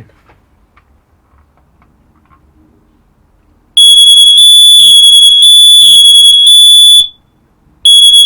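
Mains-interlinked smoke alarms set off on test: after a few seconds of quiet, a loud, shrill, high-pitched alarm tone starts, runs about three seconds, breaks off briefly and starts again.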